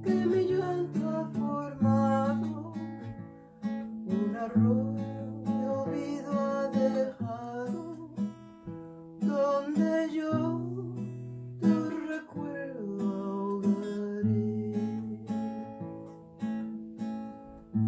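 Acoustic guitar strummed in a steady rhythm, with a woman singing over it through the middle part.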